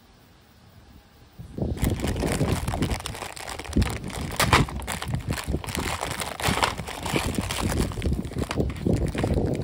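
Crinkling and tearing of the printed cover of a foil-pan stovetop popcorn kit as it is pulled open by hand, starting a little under two seconds in and going on irregularly, with many sharp crackles.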